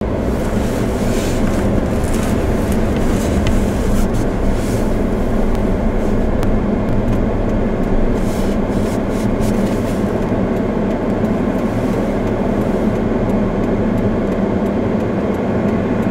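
A car driving, its engine and tyre noise a steady rumble heard from inside the cabin.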